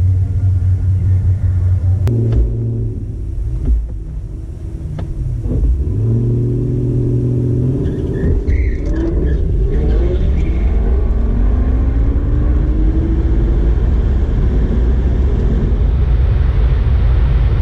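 Car engine running with a deep, steady low rumble, briefly revved twice. From about halfway it gives way to a rushing engine noise whose pitch rises slowly, like a car accelerating away.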